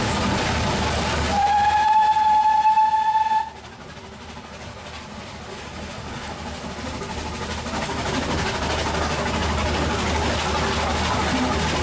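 A narrow-gauge steam locomotive's whistle sounds once, a single held note about two seconds long, over the steady running noise of the train. As the whistle stops, the running noise drops sharply, then builds back over the next few seconds.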